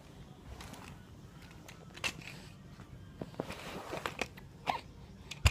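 Baby hiccuping: a few short, sudden hics spread irregularly over several seconds, the loudest near the end.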